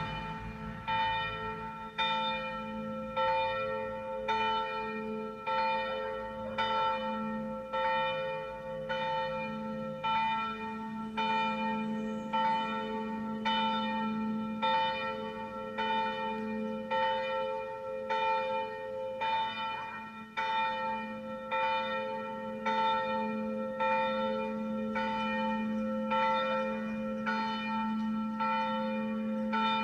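Church bell "Maryja", about 500 kg with a strike tone of a1, cast in 1971 by the Jan Felczyński foundry in Przemyśl, swinging and ringing for the midday ringing. The clapper strikes about once a second in an even rhythm, each stroke ringing on into the next.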